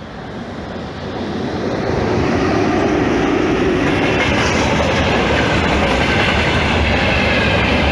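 Train passing close by, its level rising over the first two seconds and then holding as a steady loud rush of wheels on the rails, with clickety-clack over the rail joints.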